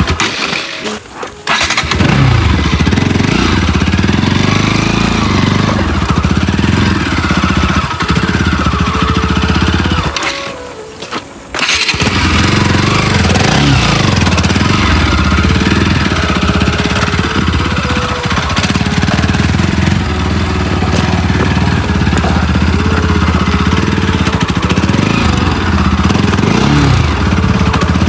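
Motorcycle engine running under way, its pitch rising and falling with the throttle over rough ground, with two brief drops in sound, about a second in and again around ten seconds in.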